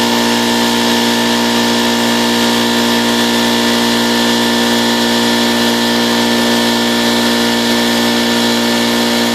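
Craftsman 20-gallon air compressor running steadily, its motor and newly rebuilt piston pump filling the tank. It is building pressure again, the sign that the piston rebuild has cured its failure to build air.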